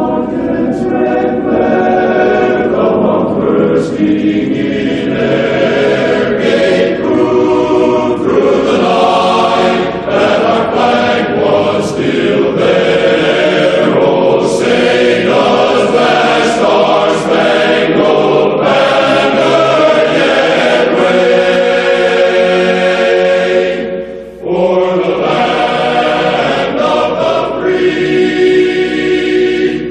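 Choir singing long, held chords, with a brief break about 24 seconds in.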